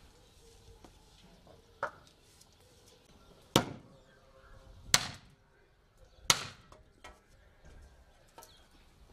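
Axe chopping firewood on a chopping block: three loud, sharp blows of the blade into wood, evenly spaced a little over a second apart, with a lighter knock before them and a few faint knocks after.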